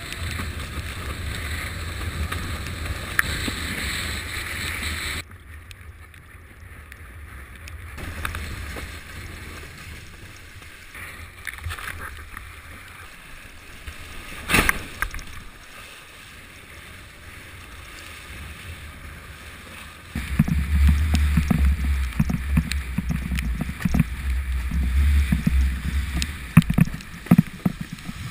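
Wind buffeting the microphone of a GoPro Hero2 on a windsurfing rig, with water rushing and splashing under the planing board. The noise drops about five seconds in, a sharp knock comes about halfway through, and a heavy low rumble of wind on the microphone returns for most of the last eight seconds.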